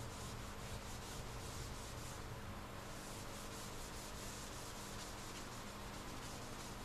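Cured body filler (Bondo) on a car's rear quarter panel being sanded by hand with a sanding block: abrasive paper rubbing over the filler in repeated strokes, steady throughout.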